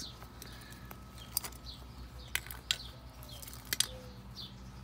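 Birds chirping again and again in short, quick falling chirps, with a few sharp clicks and a low steady hum underneath.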